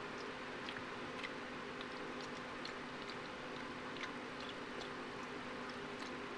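Java macaque eating with lip smacking and chewing: small irregular clicks, several a second, over a steady low hum.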